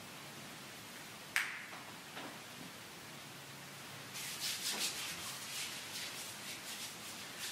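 Communion vessels and linens being handled at the altar: a single sharp clink about a second and a half in, then a few seconds of quick rubbing and rustling strokes.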